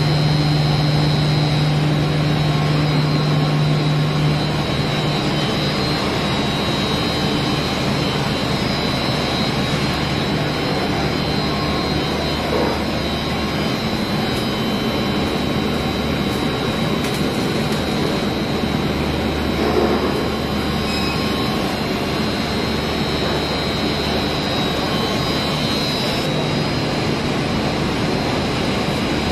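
Steady, loud drone of an ammonia refrigeration plant's running machinery, electric-motor-driven centrifugal pumps among it: a constant rushing noise with a low hum and a thin high whine over it. The low hum eases a few seconds in and comes back near the end.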